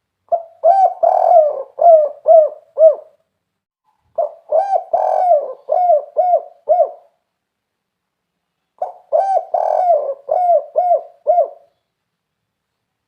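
Spotted dove (tekukur) singing its 'kuk 3' song: three cooing phrases a few seconds apart, each a run of about seven coos that ends in short, separate notes.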